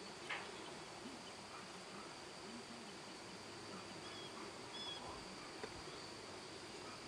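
Faint outdoor ambience: a steady high insect drone, with two short high chirps midway and a soft tap just after the start.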